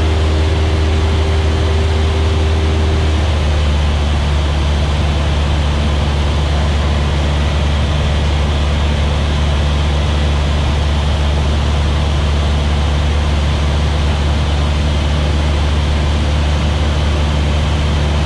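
Cessna 172S's four-cylinder Lycoming engine and propeller, a steady drone heard inside the cabin; the note shifts slightly about three and a half seconds in.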